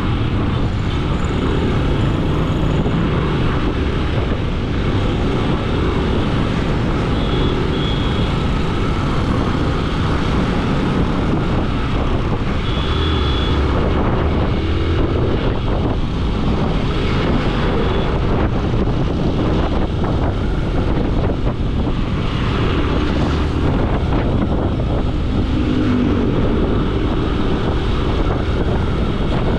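Steady road and engine noise of a moving vehicle, with some wind on the microphone.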